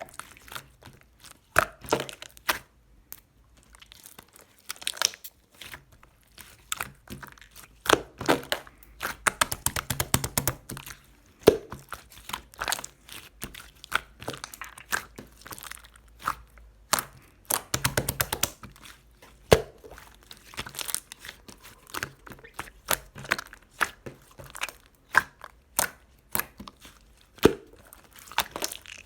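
Clay-mixed slime being squished and stretched by hand: irregular sticky clicks and crackles, with denser runs of crackling about a third of the way in and again just past the middle.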